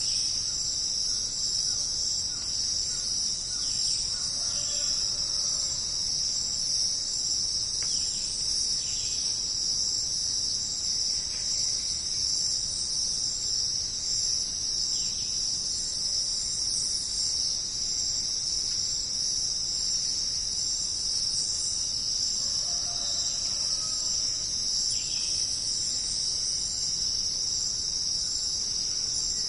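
Dense, steady, high-pitched chorus of jungle insects, an unbroken shrill drone, with a few faint short calls from other animals now and then.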